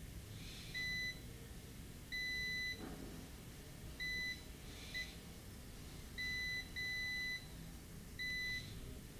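Digital multimeter in diode mode beeping as its probe is touched to test points on a phone logic board. There are seven short, high, steady beeps, some a blip and some about half a second long, one for each contact.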